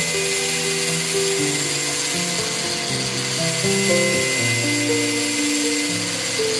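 4-inch angle grinder's abrasive disc grinding a steel scraper blade, a steady high whine with grinding hiss. Background music with a melody plays over it.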